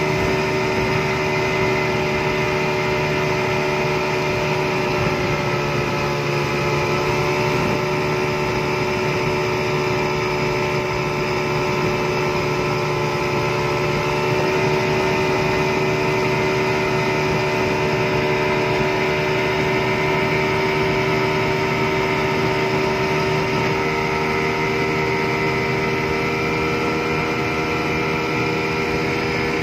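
Yamaha 200 two-stroke V6 outboard motor running at high, steady speed under load, its pitch dipping slightly about six seconds in, over the rush of wake and spray off the hull.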